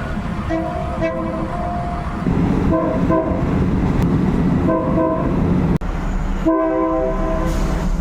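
Train horn sounding a chord of steady tones: one long blast, then several short blasts, over the low rumble of a moving train.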